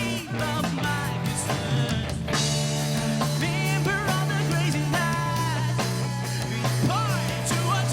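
Rock-style band music: a singer over guitar and a steady, held bass line.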